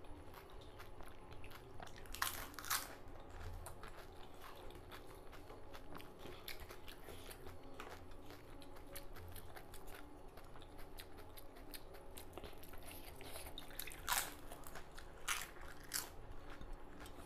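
Close-up chewing of crisp pani puri shells, with several sharp crunches about two seconds in and again near the end and softer chewing between.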